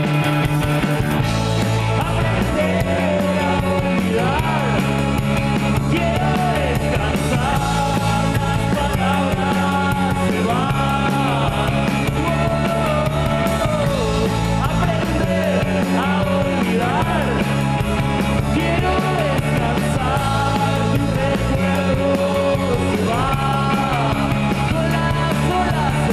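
Live rock band playing: electric guitar, bass, synthesizer and drums, with a bass line stepping between notes every couple of seconds and a lead melody gliding above.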